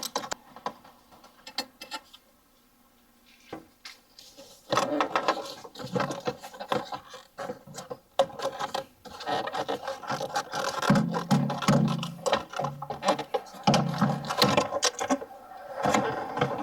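Irregular clicking, rattling and scraping of hard plastic as the engine air filter box is worked loose and pulled out. A piece of the box breaks off during this. The first few seconds are quiet apart from a few clicks, and then the handling noise becomes dense and steady.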